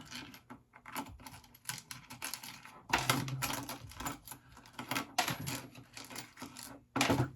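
Irregular clicking and tapping of small metal parts and tools being handled on a workbench while eyelet terminals are worked on a wiring harness.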